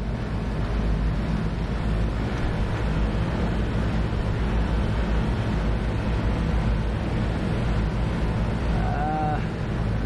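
Steady running rumble of a Carrier rooftop air-conditioning unit under load, with wind noise on the microphone.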